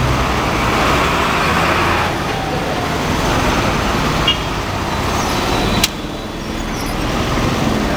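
Steady, loud outdoor din of the kind heard near road traffic, with a low engine hum over the first two seconds and a sharp click about six seconds in.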